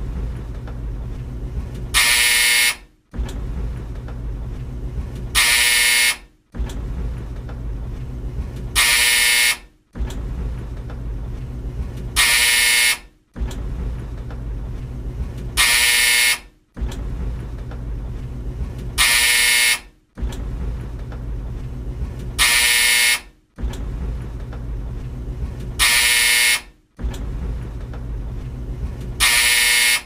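Old tumble dryer's drum running with a low rumble, cut every three and a half seconds or so by a loud, harsh buzz from its buzzer, with a short moment of silence after each buzz. The pattern repeats about nine times.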